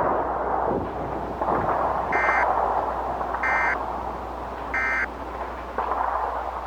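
Emergency Alert System end-of-message tones: three short bursts of SAME digital data, each about a third of a second long and a little over a second apart, marking the end of the alert message. They play over a continuous noisy background with a low hum.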